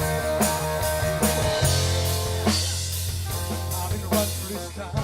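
Live rock band playing an instrumental passage: drum kit keeping a steady beat, with bass and guitars over it.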